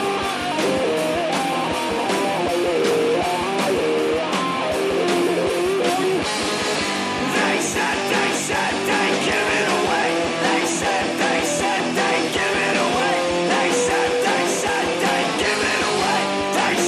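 Instrumental passage of a stoner rock song: guitars over a steady drum beat. The band grows fuller and brighter about six and a half seconds in.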